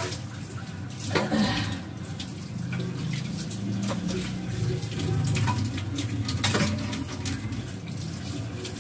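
Kitchen tap running into a stainless-steel sink while things are rinsed, with a few knocks and clinks.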